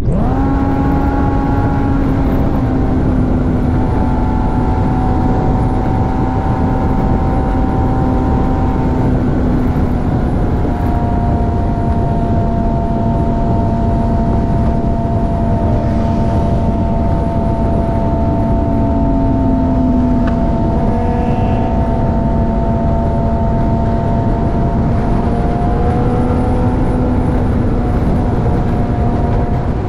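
Suzuki GSX-R 750's inline four-cylinder engine running at steady cruising revs at highway speed, with wind rushing past the camera. The pitch shifts slightly a few times, dipping briefly about two-thirds of the way through.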